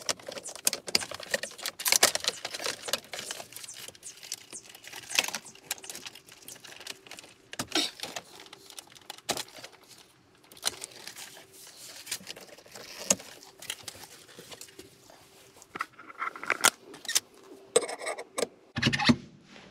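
Irregular clicks, clinks and light rattles of metal shifter parts and plastic console trim being handled, with a denser run of clicks and clunks near the end as the aftermarket RSX hybrid shifter is worked by its knob.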